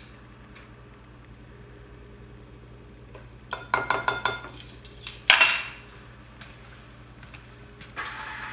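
A metal spoon and glassware clinking: a quick run of ringing clinks, then one louder clink a second later. Near the end a stand mixer's motor starts up with a rising whine.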